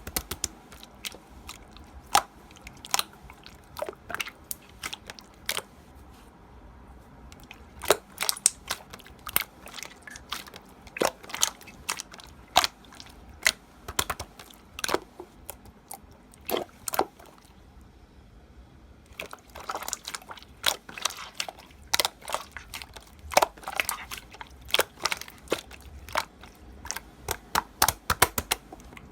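Slime being squeezed and pressed by hand, making irregular sharp popping clicks in quick clusters, with a short lull about eighteen seconds in.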